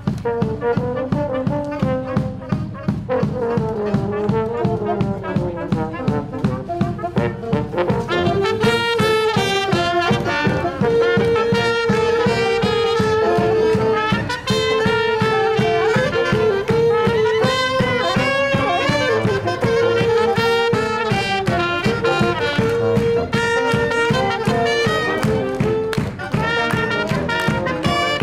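Live street band of saxophone and brass horns over a steady bass-drum beat, playing a tune whose melody moves into long held notes about a third of the way through.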